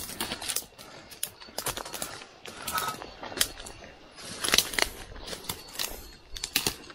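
Footsteps and brush rustling on a forest trail: uneven crackling of dry leaves and twigs underfoot as people push through dense undergrowth.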